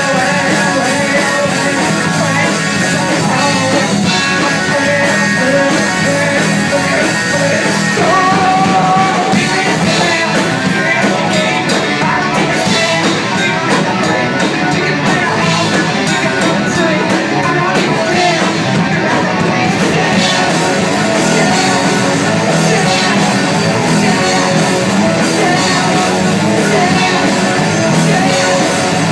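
A young rock band playing a song live: a girl singing into a microphone over electric guitar, bass guitar, drum kit and keyboard, loud and continuous.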